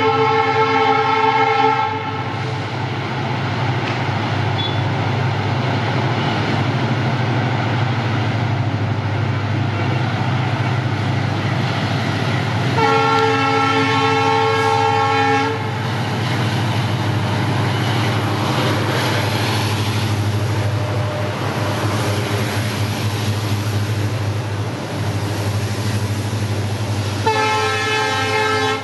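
A pair of EMD diesel freight locomotives (WDG4D and WDG4) running with a steady low engine hum. The locomotive horn sounds three times, each blast lasting two to three seconds, at the start, about halfway through and near the end. Between the blasts and later on, a rumble of loaded BOXN wagons rolls over the track.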